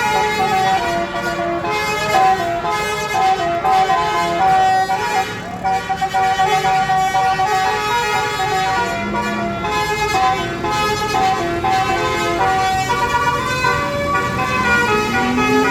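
Tour bus basuri horn, a multi-trumpet musical air horn, playing a melody of stepped notes with several tones sounding together. A rising-then-falling swoop comes about nine seconds in and again near the end.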